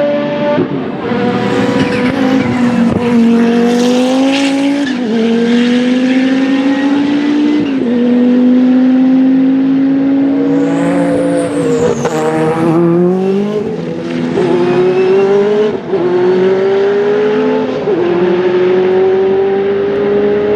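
Loud Group C racing prototype engines accelerating hard, each gear's note climbing steadily in pitch and then dropping sharply at the upshift, about seven shifts in all.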